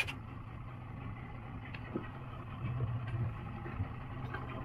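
Steady low hum of a boat's twin outboard motors idling, with a few faint knocks.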